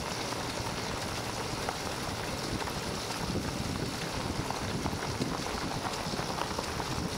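Steady rolling and crunching of a dog cart's wheels and running dogs' paws on a gravel trail at about 6 mph, with wind on the microphone.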